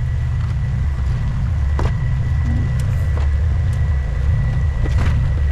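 Off-road vehicle crawling at low speed on a rocky trail: a steady low engine and drivetrain rumble, with a few short knocks about two seconds in and again near the end.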